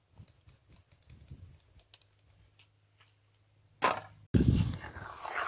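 Faint scattered crackles and pops from cooking over an open wood-twig fire. About four seconds in, a sudden loud rush of wind on the microphone takes over.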